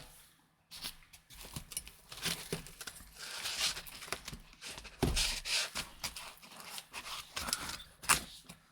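Packaging being cleared away by hand: plastic wrapping crinkling and rustling in irregular bursts, with scattered clicks and a heavier knock about five seconds in.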